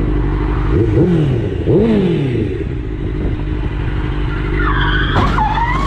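Sport motorcycle engine running under way with wind rushing past the helmet, the engine pitch rising and falling twice about a second and two seconds in, and a brief high wavering sound near the end.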